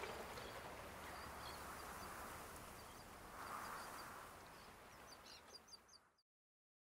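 Faint seaside ambience: harbour water lapping with a soft swell about three and a half seconds in, and small birds chirping, the chirps coming in a quick run near the end before the sound fades and cuts to silence.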